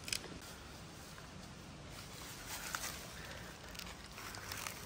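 Footsteps on dry leaf litter and twigs: irregular light crunches and snaps, a sharp one right at the start and more clustered about halfway through and near the end.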